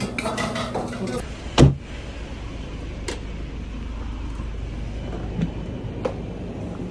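Brief murmur of voices, then a single loud thump about a second and a half in, followed by steady low street rumble of traffic with a couple of faint clicks.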